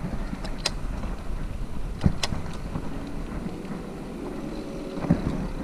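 A bicycle on a paved road heard from the rider's action camera: wind buffeting the microphone over a steady riding rumble. A few sharp clicks from the bike break through, the loudest about two seconds in.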